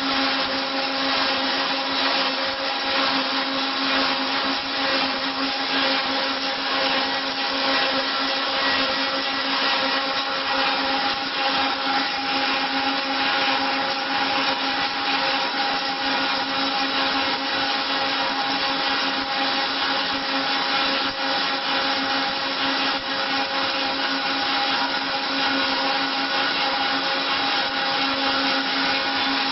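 Wood copy milling machine running steadily: a constant motor whine of several tones over an even rush of noise.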